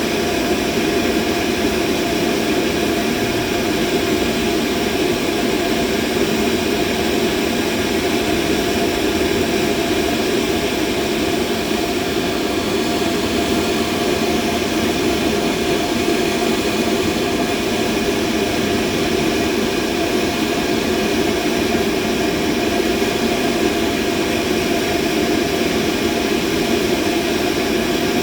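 Steady machine noise: a continuous, unchanging mechanical whir, heaviest in a low-middle band with a few faint steady tones above it, played as a mid-frequency masking sound for tinnitus.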